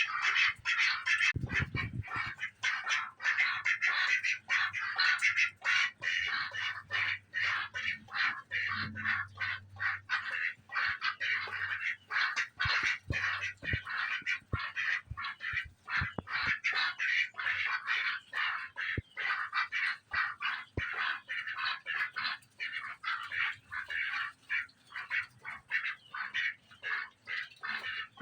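Ducks eating lettuce: a continuous, rapid run of bill dabbling and clattering, several short strokes a second, with some quacking.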